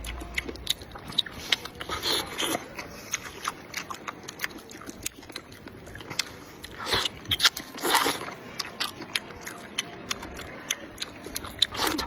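A person chewing a mouthful of soft, chewy sweet potato noodle sheets close to the microphone: a steady run of wet mouth clicks and smacks, with a few louder moments about two, seven and eight seconds in.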